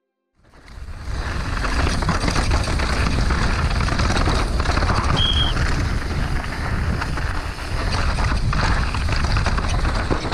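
Steady rushing noise with a heavy low rumble from a downhill mountain bike run, fading in about half a second in. A short high beep sounds about five seconds in.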